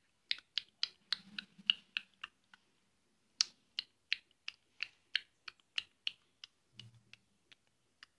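A run of sharp snapping clicks, about three a second, with a pause of about a second a little before the middle.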